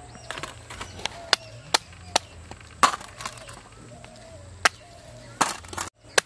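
Stone pestle knocking on a raw crab's shell, about nine sharp knocks at uneven intervals, lightly cracking the shell so it will come away from the meat.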